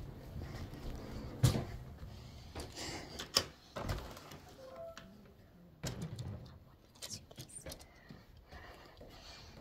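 Scattered knocks, thumps and rustles from a handheld phone being carried and jostled while someone walks about, with a brief squeak about five seconds in.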